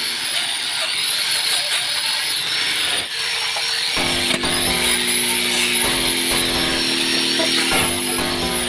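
A high-speed electric power tool running and working on metal, its whine rising and dipping as the load changes. A steady low hum joins it about four seconds in.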